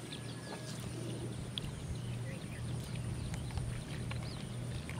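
Outdoor field ambience: a steady low drone with frequent short, high wildlife chirps and clicks scattered over it.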